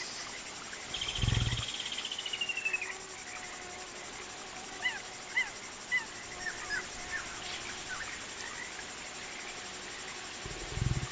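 Jungle ambience: a steady high insect drone, with a rapid trilling call falling in pitch about a second in and scattered short bird chirps in the middle. Two brief deep rumbles, like low animal growls, come about a second in and near the end.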